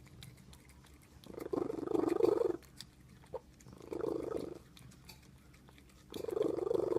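Domestic cat purring loudly in rough, rattling bursts of about a second each, three in all, roughly every two and a half seconds.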